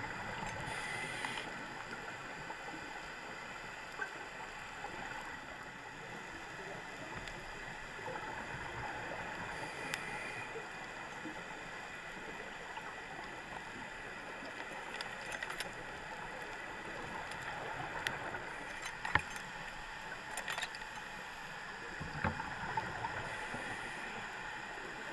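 Underwater ambience through a dive camera's housing: a steady hiss with scattered sharp clicks and knocks, and scuba regulators exhaling bubbles a few times.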